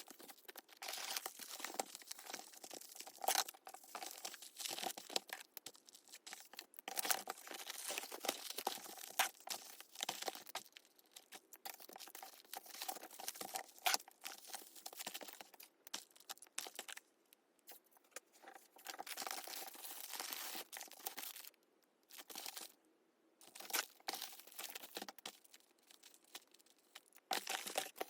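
Packaging being handled by hand: plastic and paper crinkling and rustling in irregular spells, with tearing sounds, broken by short pauses.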